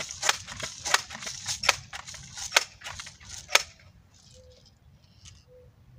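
Crosman M4177 air rifle being handled: a run of irregular sharp clicks and clacks from its plastic and metal parts, ending with a louder snap about three and a half seconds in.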